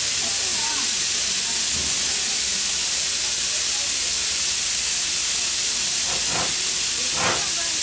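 Steady hiss of steam escaping from Norfolk and Western J-class steam locomotive 611.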